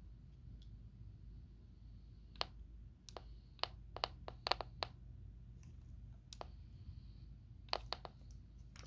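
Sharp, unexplained clicks coming through a Midland F20 FRS walkie-talkie monitoring a channel, in irregular clusters over a low hum. They begin a couple of seconds in, bunch up around the middle, and come again near the end.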